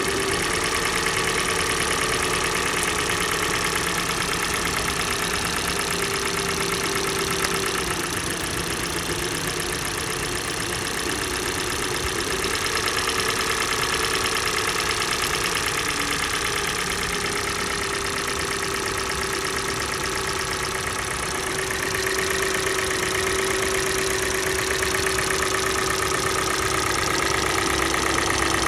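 Kia Sportage's G4NA 2.0-litre four-cylinder petrol engine idling cold, with a steady rhythmic knock from the engine.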